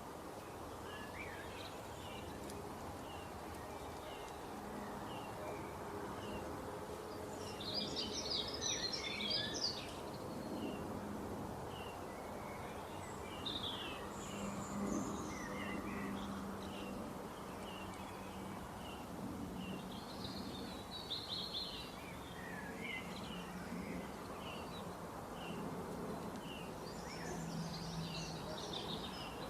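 Small songbirds chirping and twittering: short chirps repeating about once a second, with bursts of quick twittering about eight seconds in, around twenty seconds and near the end, over a steady wash of sea-wave noise.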